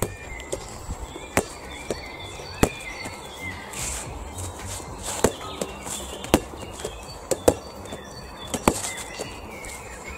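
A string of sharp slaps, roughly one a second, from a small rubber play ball being thrown, caught and bounced.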